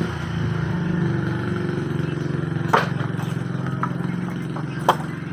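A motor running steadily with a low, fast-pulsing hum. Sharp clicks or knocks come once near the middle and again near the end.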